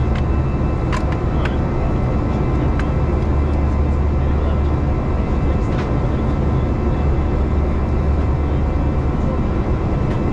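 Steady cabin noise of an Airbus A321 in motion: a strong low engine hum with rushing air noise and a few faint thin tones, broken by a few faint clicks.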